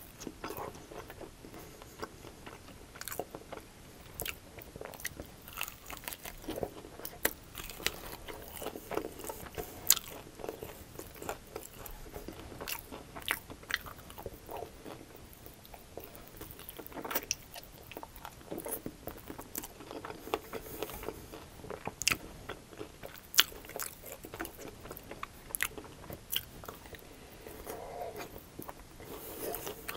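Close-miked biting and chewing of crunchy sauced chicken wings: irregular sharp crunches of the crisp breaded skin, some much louder than others, over steady chewing.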